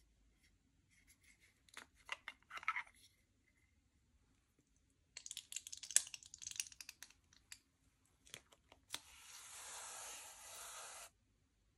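Small handling sounds: scattered clicks and scratches, a stretch of crackling and scraping about five seconds in, then a steady hissing scrape lasting about two seconds near the end.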